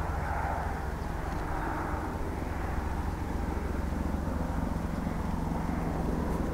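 A steady, unchanging engine drone, low and even.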